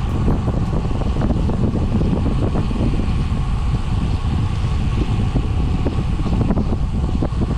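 Wind buffeting the microphone of a camera carried on a moving bicycle: a steady, choppy low rush of wind noise.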